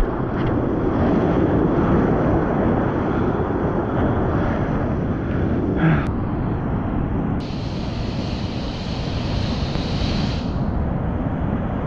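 Ocean shore break: steady rushing of surf and whitewater, heavy in the low end. About seven seconds in, a breaking wave's hiss starts suddenly and fades out near the end.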